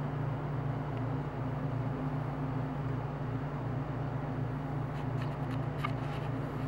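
Steady low hum, like machinery or an air-handling unit running, with a few faint light ticks about five to six seconds in.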